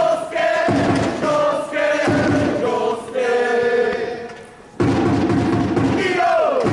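Football supporters singing a player chant in unison, many voices holding long sung notes. The singing fades for a moment, then a loud new chant starts abruptly about five seconds in.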